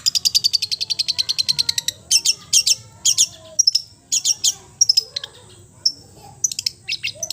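Songbirds chattering: a fast run of high, dry notes for about two seconds, then short sharp chirps in separate bursts with brief pauses.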